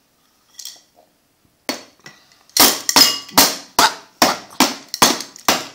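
A toddler banging a blue plastic object on a plastic high-chair tray: a couple of light knocks about two seconds in, then steady, loud bangs about two to three a second.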